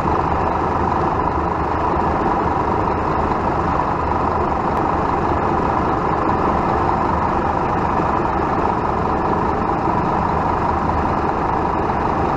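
Scania K230UB bus's rear-mounted nine-litre five-cylinder diesel engine idling steadily, heard at the open engine bay.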